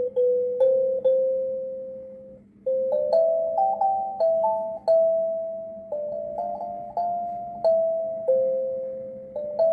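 Kalimba (thumb piano) played by thumb, one plucked metal tine at a time, each note ringing and fading slowly. The melody moves slowly and unevenly in the beginner's hands, with a brief break about two and a half seconds in.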